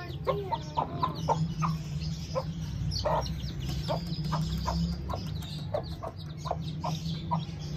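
Desi mother hen clucking to her chicks as they feed: a steady run of short clucks, about two a second, over a low steady hum.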